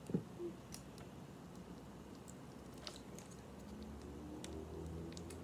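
Faint scattered ticks and crinkles: a small foil packet of Heath toffee bits being handled and shaken out over a mug. A brief falling tone sounds just after the start.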